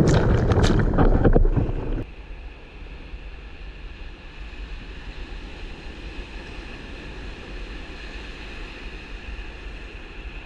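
Sea water splashing and rushing over an action camera's microphone while bodyboarding in the surf, with wind buffeting the mic. About two seconds in it drops abruptly to a much quieter steady hiss.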